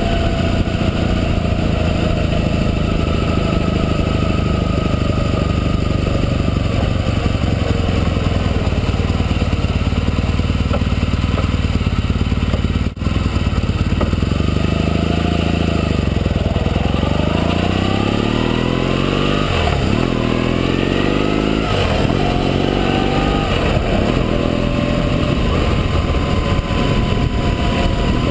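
Motorcycle engine recorded from a camera mounted on the bike, with wind noise. The engine pitch sinks gradually as the bike slows. After a brief dropout about halfway through, the engine pulls away, rising in pitch and breaking off at each of several upshifts before settling into steady cruising near the end.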